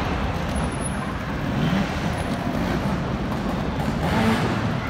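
Trials motorcycle engines revving, their pitch rising and falling over a steady background din.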